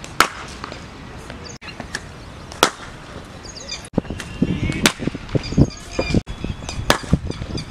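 Sharp cracks of a cricket bat striking the ball, four in all, about two seconds apart, with birds chirping and faint voices between the shots.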